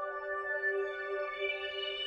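Ambient meditation music: sustained, slowly swelling synthesizer-like tones held in several pitches.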